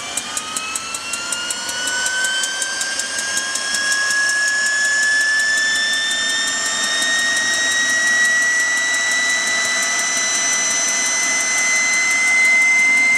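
Rover gas turbine of a Lucas aircraft ground power unit spooling up after an autostart. A rising whine climbs steadily, then levels off as the turbine nears its governed speed. A fast ticking fades out over the first few seconds.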